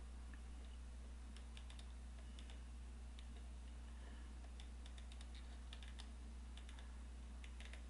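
Faint, irregular clicks from a computer's controls as a web page is scrolled down, over a steady low hum.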